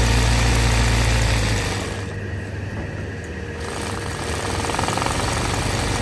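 Hand-guided embroidery machine running, its motor humming steadily as the needle stitches the fabric; the deep hum drops away about two seconds in, leaving the lighter running noise of the machine.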